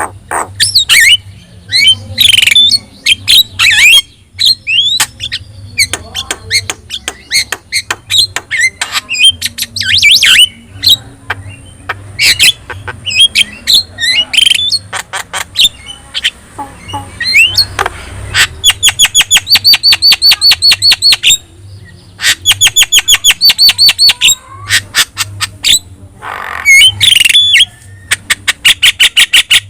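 Javan myna singing loudly and without pause: a varied chatter of whistles and harsh squawks, broken in the second half by several rapid runs of evenly repeated notes, about seven a second.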